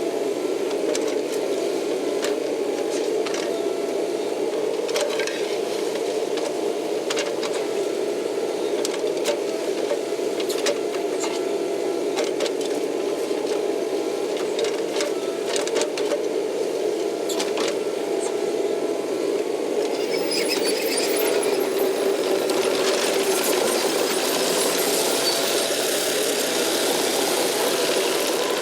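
Kubota KX080 excavator's diesel engine running steadily under work, with scattered clanks and knocks. A hiss grows louder about twenty seconds in.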